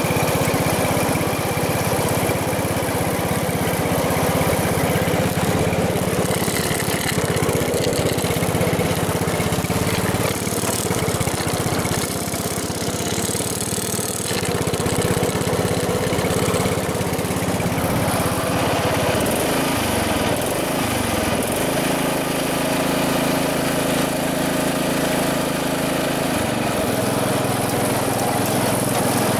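Snowmobile engine running steadily, its pitch sagging and picking up again about two-thirds of the way through, and dipping briefly once more near the end.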